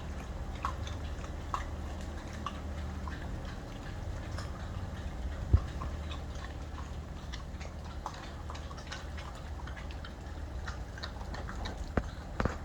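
Rhodesian Ridgeback puppies chewing raw chicken legs: scattered small crunches and clicks of teeth on bone, about one a second, with one sharper knock about halfway through, over a steady low hum.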